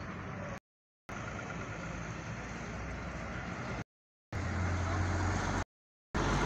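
Steady street traffic noise of running vehicles, with a city bus's engine humming close by in the second half. The sound drops out to complete silence for a split second three times.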